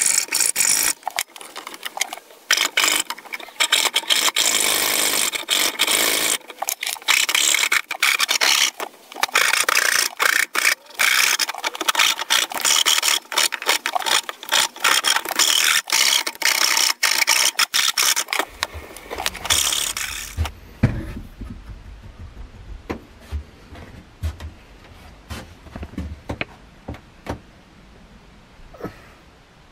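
Hand tools cutting wood: rapid, rough back-and-forth strokes of a hacksaw and then a rasp shaping the top end of a wooden hammer handle. About twenty seconds in the cutting stops, leaving scattered soft knocks and taps.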